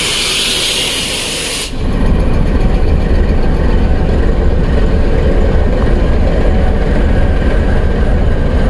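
Pakistan Railways GEU-20 (GE U20C) diesel-electric locomotive standing at the platform with its engine idling: a loud hiss cuts off suddenly about two seconds in, leaving a steady deep engine rumble.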